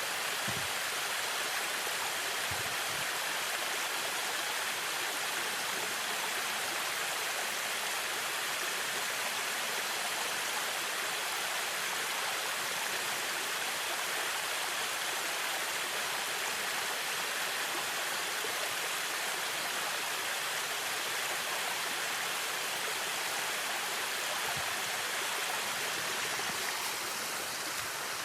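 River water rushing over rocks: a steady, even roar of flowing water.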